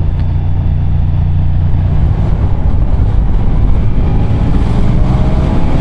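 Ducati Diavel V4's V4 engine pulling the bike along at road speed, with wind rush on the microphone. About four seconds in, the engine note rises slightly as it accelerates.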